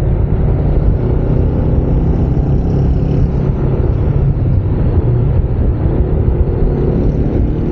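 Steady low wind rumble on an unshielded lavalier microphone while riding a Yamaha NMAX 155 scooter at speed, with the scooter's engine running faintly beneath it.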